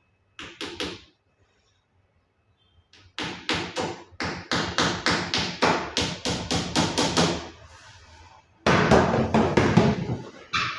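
Hammer driving nails into a wooden wardrobe panel: a few strikes, then two long runs of rapid, even blows at about four a second.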